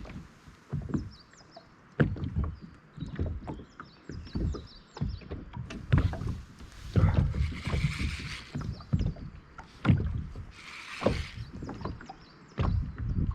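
Irregular knocks and thuds of tackle and hands against a small plastic boat's hull as a hooked fish is brought in, with two short bursts of hiss partway through.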